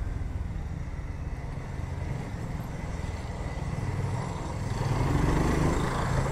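BSA Gold Star 650's single-cylinder engine and exhaust running under way with a steady firing pulse. It gets louder about five seconds in as the bike pulls harder.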